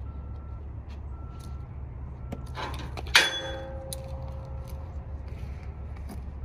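A sharp metallic clank with a brief ringing about three seconds in, from ratchet-strap hardware on a steel trailer deck. Under it is the steady low hum of an idling vehicle, with a faint beep repeating about once a second.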